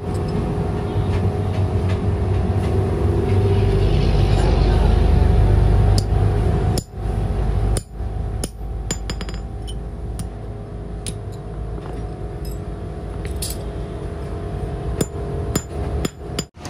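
A workshop machine's motor running steadily, with sharp metal taps and clinks scattered over it as a steel part is worked. The sound breaks off abruptly a few times.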